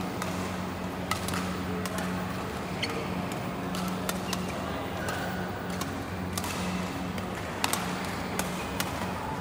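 Badminton rackets striking shuttlecocks on several courts: sharp, irregular cracks a second or so apart, a few close together near the end, over a steady low hum.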